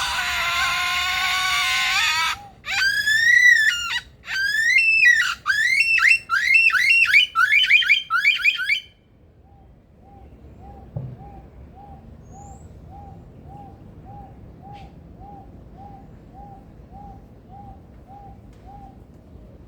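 Superb lyrebird mimicking a car alarm: a loud, buzzy steady tone for about two seconds, then a run of rapid up-and-down whistling sweeps that stops about nine seconds in. Through the rest, a soft short note repeats about twice a second.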